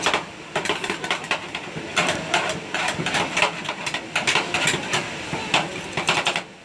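Two metal spatulas chopping and scraping ice cream on the steel cold plate of a rolled ice cream machine. They make rapid, irregular clinks and taps of metal on metal, several a second, as the mix is chopped and folded.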